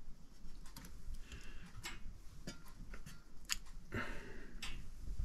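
Scattered light clicks and rustles of hands working on smoked trout, pulling out the toothpicks that held them in the smoker, with a slightly longer scraping rustle about four seconds in.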